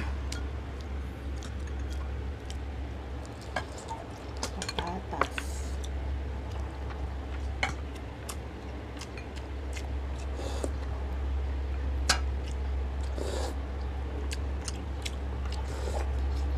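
Close-miked eating: chewing and mouth sounds, with scattered sharp clicks of a spoon and utensils against a glass serving dish, over a steady low hum.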